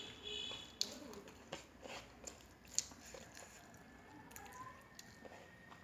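Close-up eating sounds of someone eating rice and curry by hand: soft chewing with a few sharp clicks. A brief high-pitched tone right at the start.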